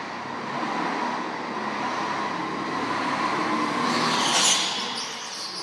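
Go-kart running on an indoor track: a steady motor and tyre noise with a faint steady tone, swelling and getting hissier about four seconds in.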